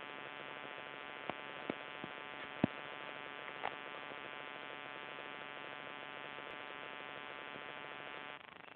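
Steady electrical hum with many overtones, broken by a few sharp clicks in the first four seconds, the loudest a little under three seconds in. The hum drops in level just before the end.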